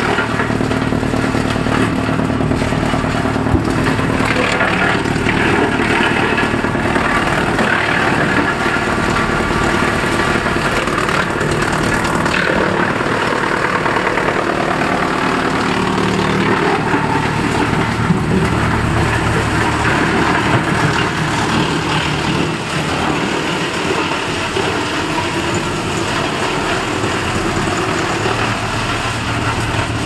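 Electric drum-type wood chipper running loud and steady as it chips branches fed into it, with occasional sharp knocks.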